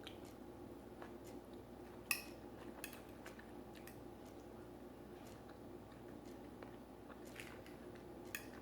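A few light clicks of cutlery against a plate, the sharpest about two seconds in, over a faint steady background hum.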